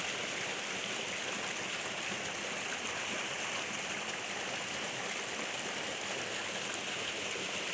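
Shallow rocky stream running over stones and boulders: a steady rush of flowing water.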